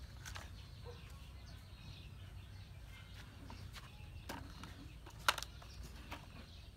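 A few sharp clacks of plastic toy trucks being handled and set down, the loudest about three-quarters of the way through, over a steady low rumble.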